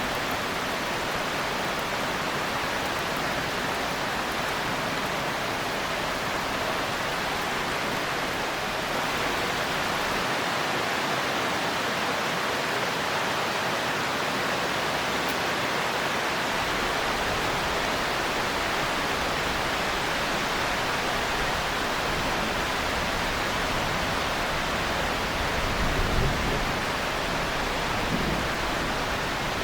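Steady heavy rain hissing evenly, with a brief low rumble of distant thunder near the end.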